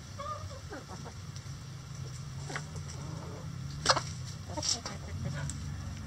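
A flock of backyard hens clucking softly as they peck and scratch, with a few short calls in the first second and several sharp ticks, the loudest about four seconds in.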